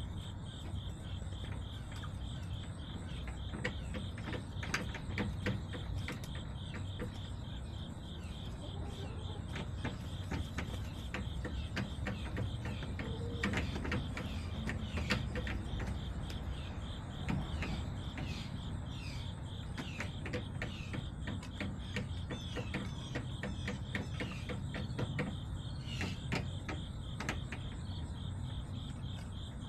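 Crickets chirping in a fast, even pulse, with scattered sharp taps and clicks and a few short chirping calls over a low steady rumble.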